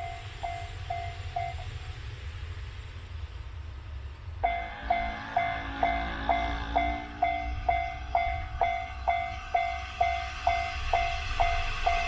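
Japanese level-crossing warning bell ringing about twice a second, the crossing alarm that warns of an approaching train. It stops briefly near the start and starts again, louder, about four seconds in, over a low steady rumble.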